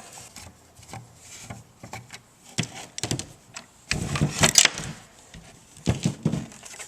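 Screws being backed out of a car side-mirror case with a Phillips screwdriver, with parts being handled: scattered clicks, scrapes and knocks, the loudest cluster a little past halfway.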